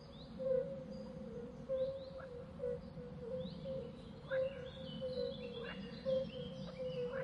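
Birds chirping: short high chirps and quick falling calls, busier in the second half, over a steady pulsing lower tone.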